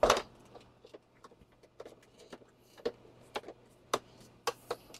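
Clicks and knocks of plastic as the upturned Coredy L900 robot vacuum's housing is handled and shifted on a workbench. The loudest is a sharp knock right at the start, followed by a few scattered light clicks, over a faint steady hum.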